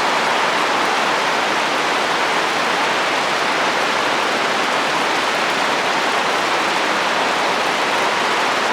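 Steady rain on a roof with wind, a dense, even hiss that does not let up.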